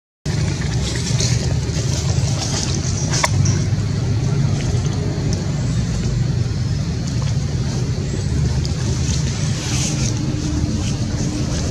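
Steady low rumble with a fainter hiss over it and one faint click about three seconds in.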